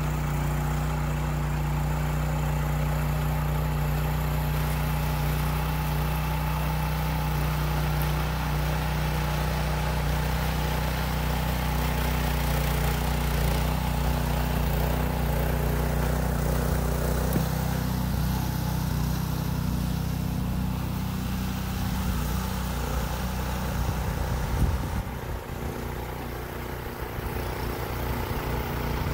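Rear-tine rototiller's small gasoline engine running steadily under load as its tines churn sand into clay soil. The engine note shifts a little past halfway and drops briefly near the end.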